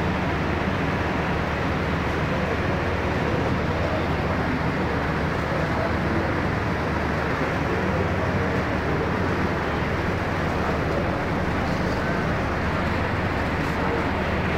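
Steady, loud background noise with a low hum and the indistinct chatter of a gathered crowd.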